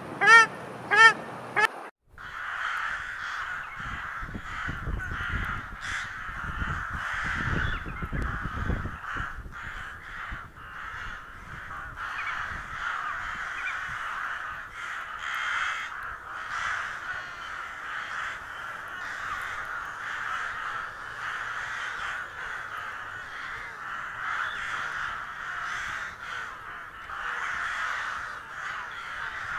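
Two loud honking bird calls, then a flock of gulls calling overhead in a continuous chorus of overlapping cries, with a low rumble a few seconds in.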